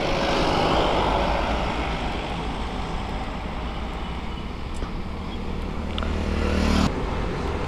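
Triumph Daytona 675R's three-cylinder engine with an Arrow exhaust idling steadily, with road traffic noise around it.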